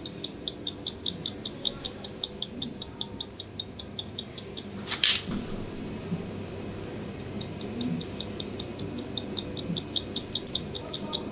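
Hairdressing scissors snipping rapidly into the hair, about five snips a second, pausing for a couple of seconds near the middle before resuming. A short, louder rustle about five seconds in.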